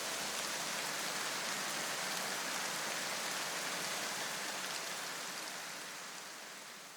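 A steady, even hiss like rain or static, which fades away over the last couple of seconds.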